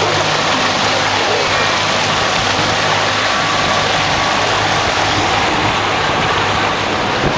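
Outboard motor running steadily under way, its low hum under the loud rush and splash of water churned up in the wake.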